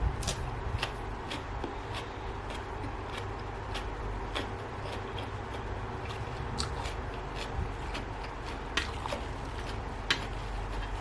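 A person eating spicy seafood instant-noodle salad with fresh vegetables: irregular small clicks and crunches of chewing over a steady low hum.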